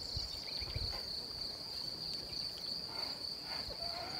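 Crickets chirping in one continuous high trill.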